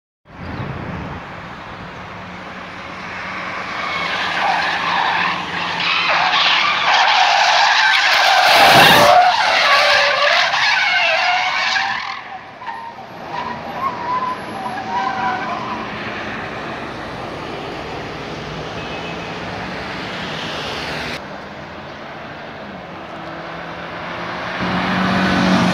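A car's tyres squealing as it skids in reckless driving, over the running of its engine. The wavering screech builds from about four seconds in, is loudest around eight to twelve seconds, and fades out by about sixteen seconds, leaving steady engine and road noise.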